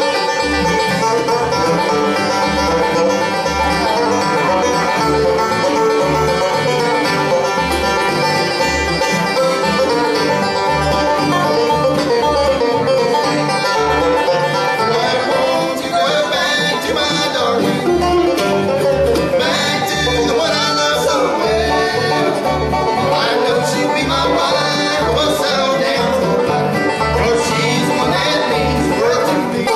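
Bluegrass band playing live: banjo, mandolin, fiddle, guitar and upright bass over a steady bass beat.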